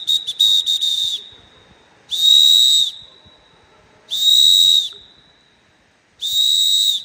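A hand-held whistle blown in four loud, shrill blasts: first a string of quick toots, then three steady blasts of about a second each, roughly two seconds apart. It is blown to scare off a wild animal near the camp.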